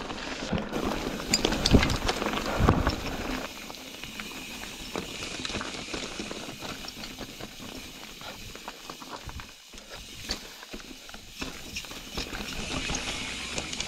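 Ibis Ripmo v2 full-suspension mountain bike rolling down a rocky trail: tyres crunching and clattering over loose stones and the bike rattling. Heavier knocks come in the first three seconds, then a lighter, steady clatter.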